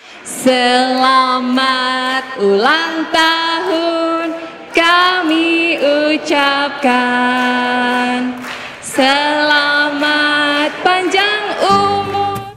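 Music: a woman singing a slow melody in long held notes, with little or no accompaniment.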